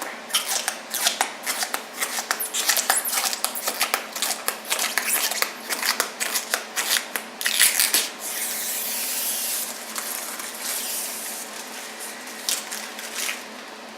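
Rapid rustling and clicking handling noises for about eight seconds, then a steady hiss for about two seconds, then a few quieter rustles.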